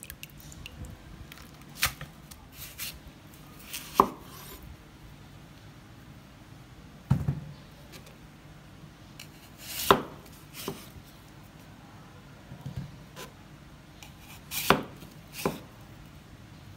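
Chef's knife slicing through peeled green papaya and knocking on a wooden cutting board: about eight sharp knocks, singly or in pairs, a second or more apart.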